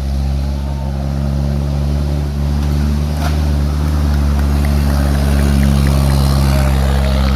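Off-road vehicle engine running steadily at a constant pitch, loud and close.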